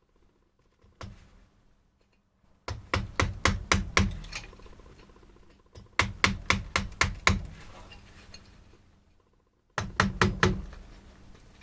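A chisel driven into wood with quick hammer blows, in three runs of strikes about five or six a second: two runs of about eight, then a shorter run of about five near the end.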